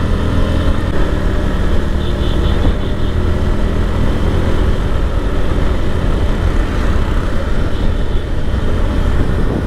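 Motorcycle engine running steadily at cruising speed, mixed with heavy wind rush on the microphone while riding.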